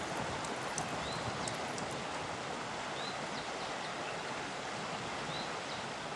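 Fast-flowing river rushing steadily, with a short high chirp repeating every couple of seconds.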